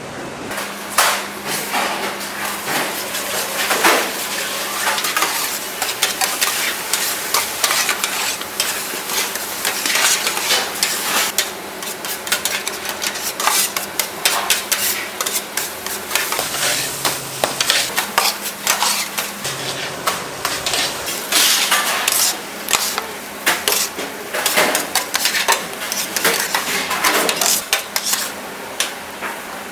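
Food being stir-fried in bulk in a large cooking pan, sizzling, with a paddle scraping and knocking against the pan in irregular strokes, over a faint steady hum.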